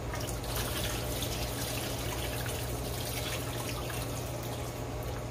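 Tap water running steadily into a pot of red kidney beans as they are washed.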